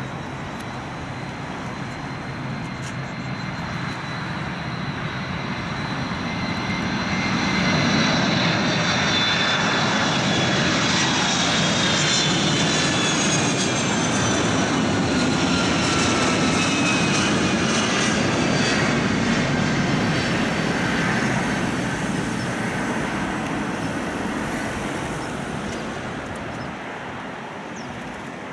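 Boeing 747SP airliner's four turbofan engines on final approach, flying past: the jet noise swells a few seconds in, stays loud through the middle, then fades, with high whining tones that slide down in pitch as it passes.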